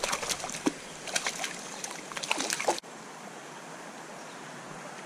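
Water splashing and sloshing at the surface of a shallow creek where a brook trout thrashes, with many quick small splashes for nearly three seconds. It then breaks off suddenly to the steady rush of the flowing stream.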